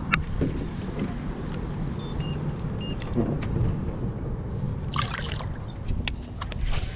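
Water sloshing and trickling as a largemouth bass is lowered into the lake by hand and released, with a burst of splashing about five seconds in, over a steady low rumble. A few sharp clicks come near the end.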